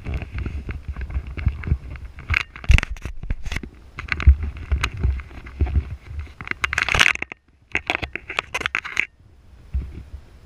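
Wind buffeting an action camera's microphone: an uneven deep rumble with irregular crackling and scraping bursts, dropping away briefly twice in the second half.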